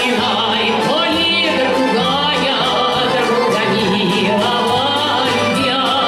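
Female solo voice singing a Russian romance with a wide vibrato, accompanied by a Russian folk-instrument orchestra of domras and balalaikas.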